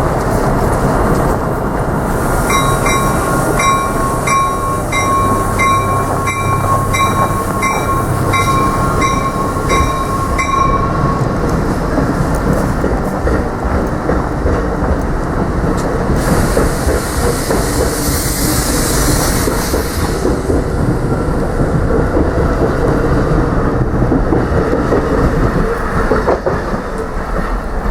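A train running close by, wheels clattering over rail joints, with a steady high tone and a regular pulsing pattern over the first third or so.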